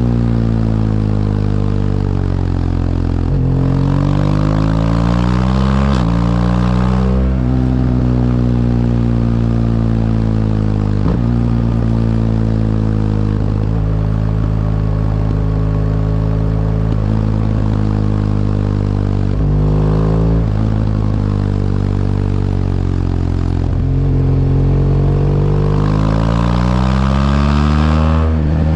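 BMW R1200GS LC's liquid-cooled boxer twin under way. The revs fall, climb and drop back several times at gear changes, hold steady in places, and rise strongly near the end.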